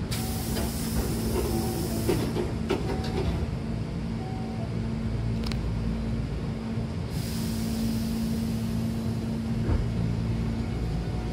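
Train doors closing: a hiss of air as the door engines work, then several clunks and knocks as the doors slide shut, about two to three seconds in. A steady low hum of the stopped train runs underneath, with a single click later and a second hiss of air about seven seconds in.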